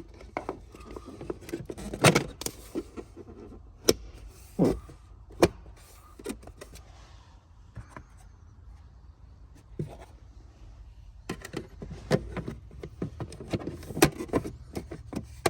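Plastic clicks and knocks of a cabin air filter being pushed into its housing behind the glove box and the trim fitted back. A quieter stretch in the middle is followed by a busier run of clicks near the end.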